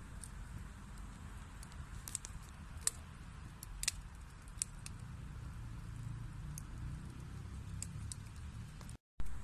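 Wood fire burning in a fireplace: a steady low rumble of flame with scattered sharp crackles and pops from the burning logs, the loudest about three and four seconds in. The sound cuts out for a moment near the end.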